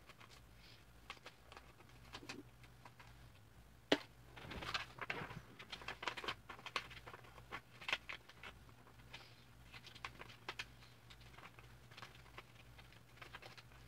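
Paper being handled and folded: irregular crinkles, rustles and creasing taps, busiest around the middle, with one sharp tap about four seconds in.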